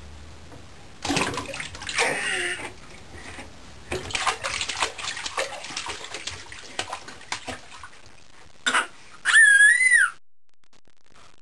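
Babies splashing in a small plastic baby tub, hands slapping the bath water again and again. Near the end comes one loud, wavering high-pitched squeal, lasting under a second.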